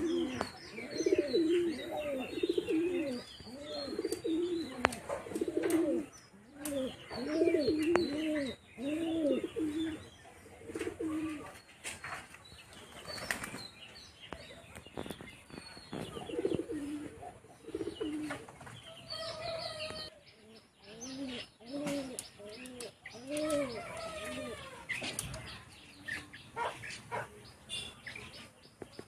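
Pigeons cooing in repeated bursts of low, rolling calls, with now and then a flutter of wings. Small birds chirp faintly in the background.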